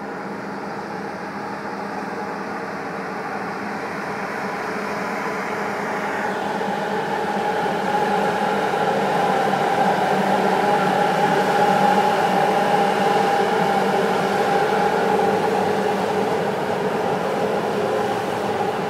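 A container freight train hauled by a Croatian Railways electric locomotive pulls out and runs past close by. A steady hum with a few held tones runs over the rumble of the wagons, and the sound grows louder as the train picks up speed, peaking a little past the middle.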